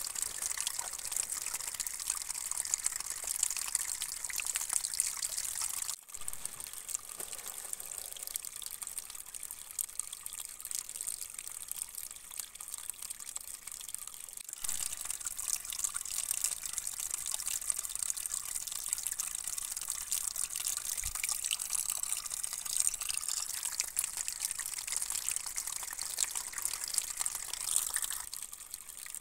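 Spring water running steadily down a hollowed-out log channel and pouring from the log's end onto wet wooden boards, a continuous splashing trickle. The sound briefly drops out twice, about six and fourteen seconds in.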